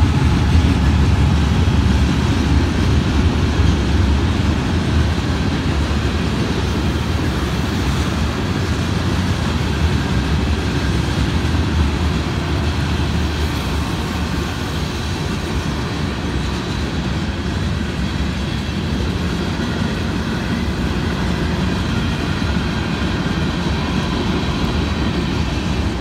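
Union Pacific freight train passing at close range: the low rumble of its GE diesel locomotives is strongest for the first several seconds, then eases as the freight cars roll steadily by on the rails.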